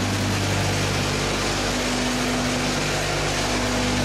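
Steady hum of a running machine: an even low drone with a fainter held tone above it, under a constant hiss.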